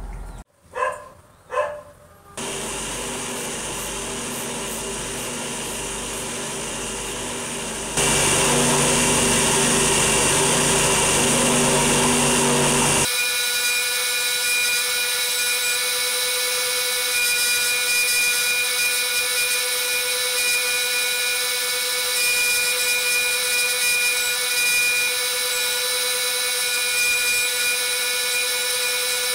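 Electric motor spinning a buffing wheel, polishing a brass Primus stove tank: a steady running whine with several held tones, louder for a few seconds in the middle. Two short sounds come just before the machine noise starts.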